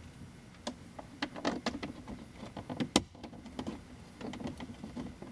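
Irregular small clicks and rustles of wiring and plastic trim being handled as wires are fed up the A-pillar into a gauge pod, with one sharper click about three seconds in.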